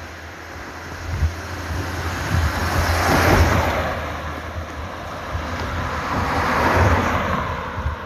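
Two cars passing close one after the other on a paved road, their tyre and engine noise swelling and fading. The first is loudest about three seconds in, the second a few seconds later.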